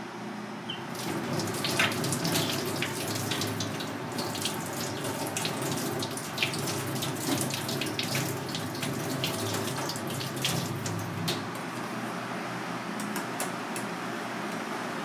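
Kitchen tap running over hands rinsing shucked turban shell meat, a steady rush of water with irregular splashes and clicks through the first ten seconds or so.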